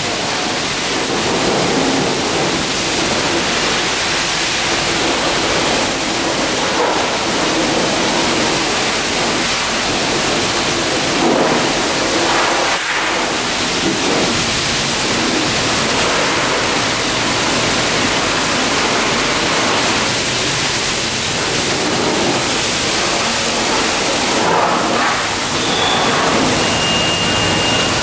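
High-pressure water spray from a self-serve car wash wand blasting an ATV's body and wheels: a steady, loud hiss of spray.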